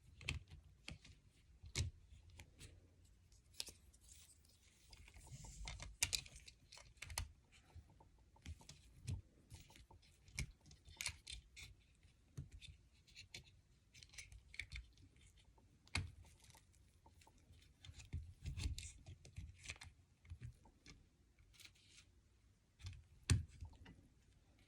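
Faint, scattered clicks and small clatter of plastic Lego pieces being handled and pressed into place, with a brief rustle about five seconds in.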